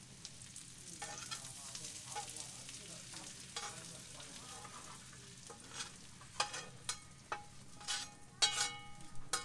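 A metal spatula scraping fried red onions out of a seasoned iron pan into a stainless steel tray, with a sizzling hiss at first. Later come a run of sharp metallic scrapes and clinks, some of them ringing, the loudest near the end.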